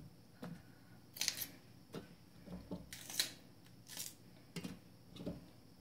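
Slices of sweet red pepper dropped one by one into a Thermomix's stainless steel mixing bowl onto raw broccoli florets: a string of about eight light, irregular taps and knocks.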